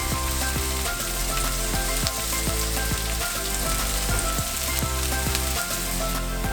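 Food sizzling in hot oil in a frying pan, a steady crackling hiss with short clicks of a utensil stirring, under quiet background music.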